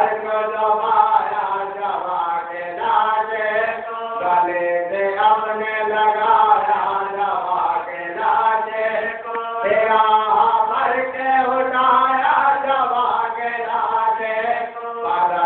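A group of men chanting together in a continuous, melodic recitation.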